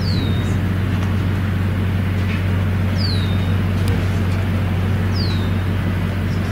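A vehicle engine idling with a steady low hum. Three times a short, high chirp falls in pitch, like a bird call.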